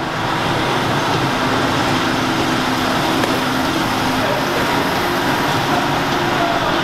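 Steady, even noise of a gym floor: ventilation and running exercise machines such as stepmills, with no sharp events standing out.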